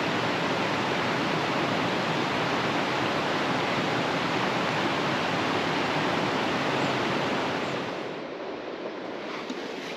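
Rushing river water: a steady, loud rush that drops off somewhat about eight seconds in.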